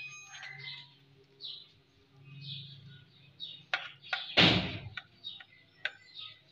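A knife cutting through a crisp egg-fried sandwich on a plastic cutting board, with a few sharp knocks of the blade and one louder thump about four and a half seconds in. Small birds chirp repeatedly in the background.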